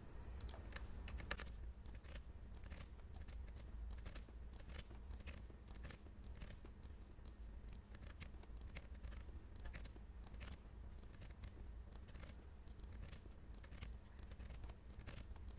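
Faint, irregular clicking of a computer mouse and keyboard, with keys pressed over and over in short combinations, over a steady low hum.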